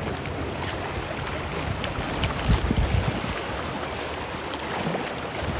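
Choppy sea waves washing continuously over a rocky shore, with wind noise on the microphone.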